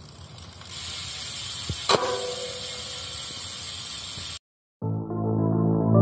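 A bottled drink being opened: a steady hiss, and a sharp metallic click with a short ring about two seconds in as the cap comes off. Near the end the sound cuts out and music begins.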